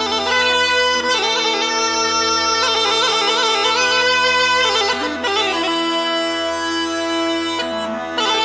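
Traditional folk music: a bagpipe-like wind instrument playing a melody full of quick ornaments over steady drone notes, pausing briefly twice.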